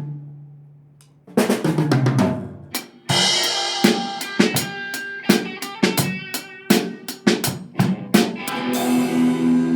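Drum kit played, with sharp drum and cymbal strikes. About three seconds in, sustained pitched notes from another instrument join, ending on a held chord.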